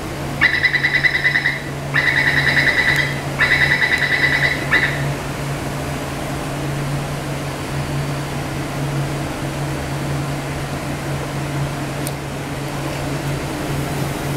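Three pulsed electronic door warning beeps, each about a second long, in the first few seconds, then a steady low hum from a Taipei Metro C381 train standing at the platform with its doors open.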